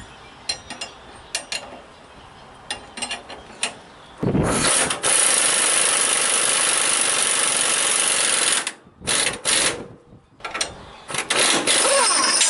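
Impact wrench on a 1-inch drive socket running a 3/4-inch bolt to draw a new bushing into a truck leaf spring eye. First a few light clicks as the tools are fitted, then one loud run of about four seconds, then several short bursts near the end.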